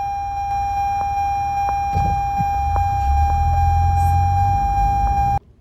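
2024 Toyota RAV4's seatbelt reminder alarm sounding as one continuous high beep over the car's low engine and road rumble, the warning for an unbuckled seatbelt. It cuts off suddenly near the end.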